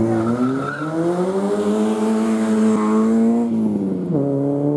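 Engine of a 1.6-litre Racing Start class hill-climb car accelerating hard towards the listener. The pitch climbs for about three and a half seconds, drops sharply at an upshift, then climbs again.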